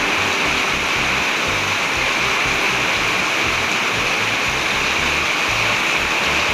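Heavy tropical-storm rain pouring down as a steady hiss.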